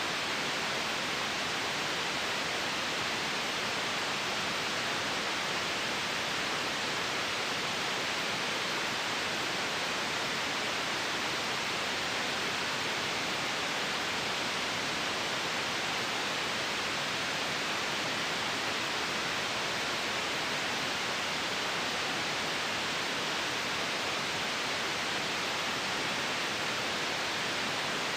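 Steady white noise: an even, unchanging hiss with no breaks or events.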